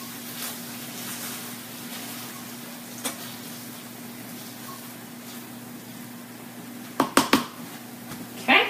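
A wooden spatula scrapes a sausage and tomato sauce mixture out of a skillet into a metal baking pan, faint over a steady low hum. About seven seconds in, three sharp knocks of pan and utensil.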